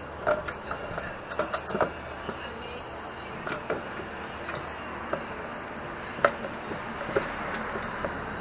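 Plywood panel knocking and scraping against a welded steel go-kart frame as it is fitted into place: scattered sharp knocks, the loudest about six seconds in, over a steady background noise.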